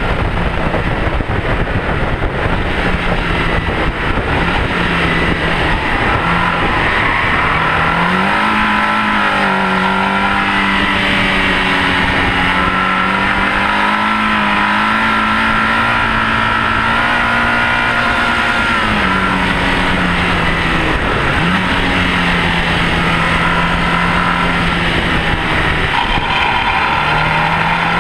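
Mini's Rover K-series VVC 1.8-litre four-cylinder engine pulling hard at high revs on track, under heavy tyre and wind roar. The engine note climbs and holds high for several seconds, falls back about two-thirds of the way through, and climbs again near the end.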